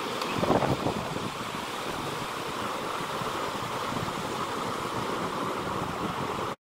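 Surf breaking and washing up a sandy beach, a steady rush of waves mixed with wind on the microphone, with a louder rush about half a second in. The sound cuts off suddenly near the end.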